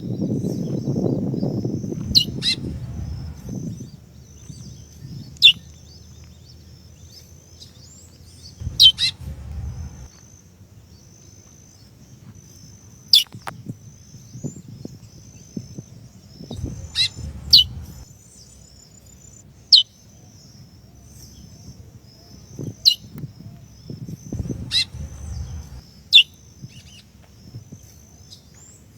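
Female chestnut-bellied seed finch (curió) giving single short falling 'piu' calls, about ten of them spaced a few seconds apart: the female's call that stirs up a male. A low rumble fills the first few seconds.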